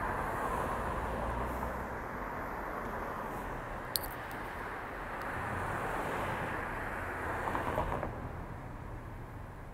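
Passing car traffic on wet pavement: a steady rush of tyres and engines that swells as cars go by and eases off near the end, with one short click about four seconds in.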